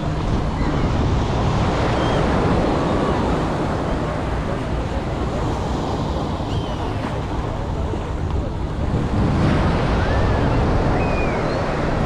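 Sea waves breaking and washing up on a beach, a steady rush of surf that swells louder about two seconds in and again around nine seconds in.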